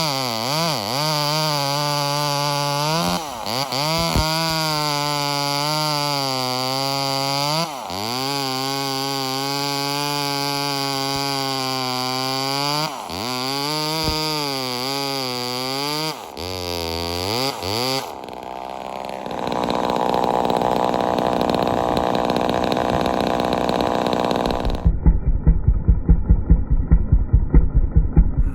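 Homelite XL-76 two-stroke chainsaw running at high revs, its pitch dropping and recovering several times as it bogs and clears while cutting. About two-thirds of the way in the engine tone gives way to a steady rushing noise, and near the end to a rapid low pulsing.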